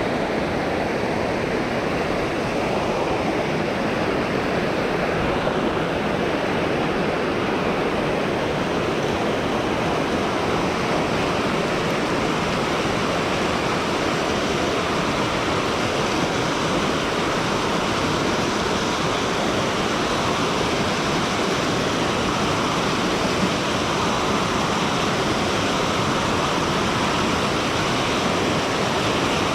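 Fast-flowing mountain river water rushing, loud and unbroken.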